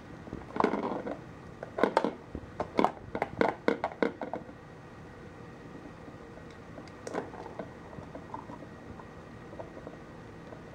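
Petstages Cheese Chase plastic ball track being batted by a kitten: a burst of plastic knocks and clatters in the first few seconds, then a few faint clicks.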